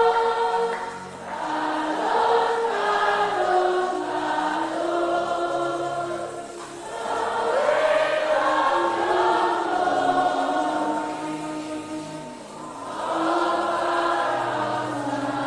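A group of voices singing a slow worship chorus in long held notes, phrase after phrase, with a short dip between phrases about every five or six seconds.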